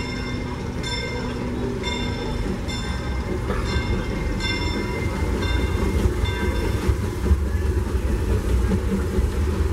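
Disneyland Railroad steam train approaching and crossing a steel trestle bridge: a bell rings at an even pace, about once every three-quarters of a second, and dies away a little past halfway, while the low rumble of the train grows louder as the locomotive reaches the bridge.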